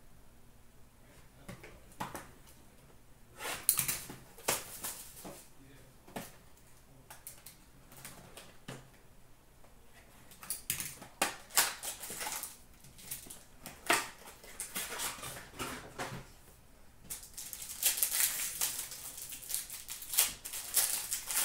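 Trading-card packs and their wrappers being handled and torn open, with a cardboard card box being opened: irregular crackling and rustling in bursts, densest near the end.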